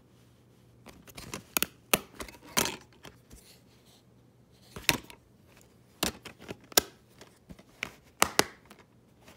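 Plastic DVD case being handled: a string of irregular sharp clicks and snaps as the disc is popped off the centre hub and the case is shut.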